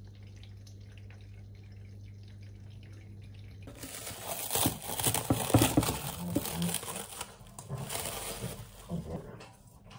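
Plastic cling wrap crinkling and rustling as it is peeled and pulled off a stainless steel pitcher, starting suddenly about four seconds in and dying away near the end.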